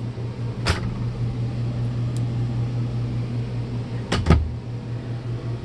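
Wardrobe cabinet doors knocking as they are handled: one knock about a second in and a quick double knock near the end. Underneath, a steady low hum of running equipment.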